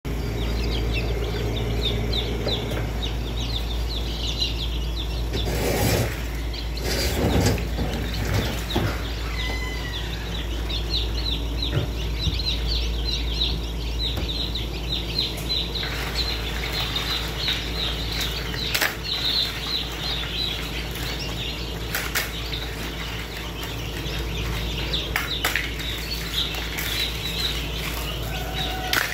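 A crowd of newly hatched domestic chicken chicks peeping nonstop, a dense chorus of short, high, falling cheeps, over a steady low hum. A few brief knocks or rustles break in, the loudest about six and seven seconds in.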